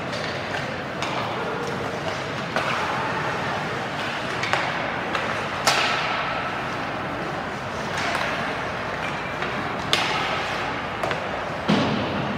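Ice hockey play: sharp clacks of sticks and puck and knocks against the boards, a handful spread through, the loudest about six seconds in with a short ringing tail, over a steady hiss of skates scraping the ice and arena murmur.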